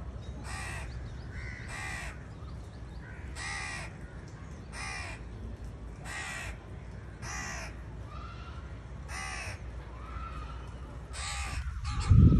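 House crows cawing: about nine harsh, short caws, spaced roughly a second and a half apart. A loud low thud or rumble comes in right at the very end.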